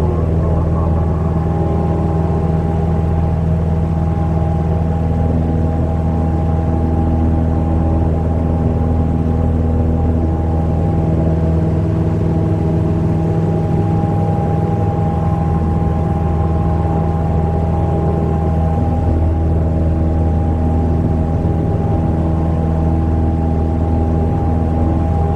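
Cessna 172M Skyhawk's 150 hp Lycoming O-320 four-cylinder engine and McCauley fixed-pitch propeller running steadily in flight, a constant deep drone heard inside the cabin.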